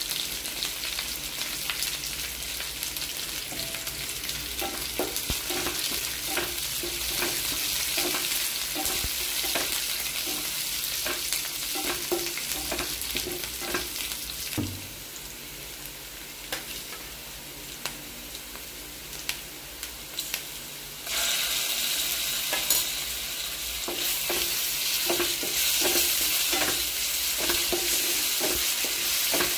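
Chopped shallots, curry leaves and green chillies sizzling in hot oil in a frying pan, with a wooden spatula scraping and stirring against the pan. The sizzle drops quieter for several seconds past the middle, then comes back louder.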